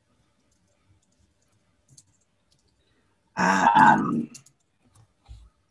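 A person's short vocal sound, about a second long, a little past halfway, with a few faint computer keyboard keystrokes around it.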